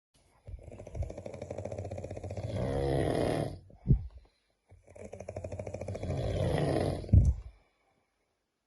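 A sleeping person snoring loudly, with a rapid helicopter-like flutter. There are two long snores of about three seconds each, and each ends in a brief louder burst.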